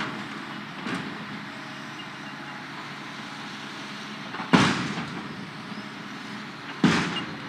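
Hitachi tracked excavator's diesel engine running steadily, with two loud metallic bangs, about halfway through and again near the end, as its bucket strikes and crushes a steel shipping container.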